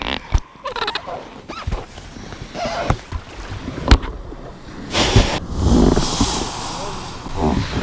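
Rubber of an inflatable dinghy squeaking and rubbing, with irregular knocks and bumps and one sharp bump about four seconds in. A rush of noise follows about five seconds in.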